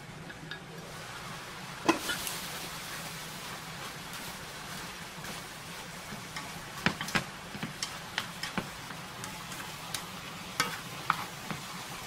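Napa cabbage and tofu sizzling in a frying pan as they steam-fry, the sizzle coming up about two seconds in. Sharp clicks of chopsticks and utensils against the pan break in now and then.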